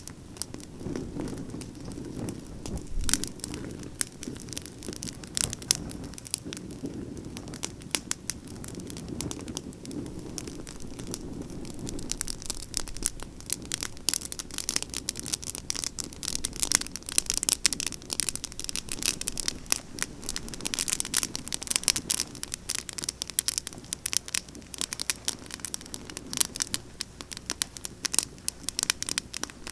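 Pruned pine branches burning in a campfire, crackling and popping densely over a low rush of flame. The crackling grows thicker and louder from about halfway through.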